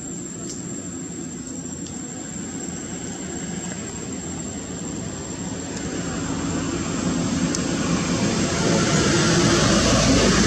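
Steady engine-like rushing noise of a passing motor, swelling steadily louder over the second half.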